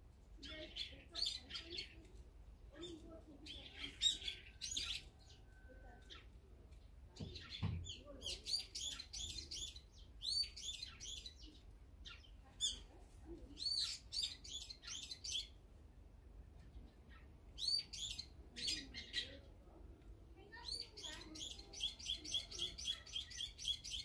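Eurasian tree sparrows chirping: clusters of short, quick chirps every second or two, ending in a fast, even run of chirps over the last few seconds.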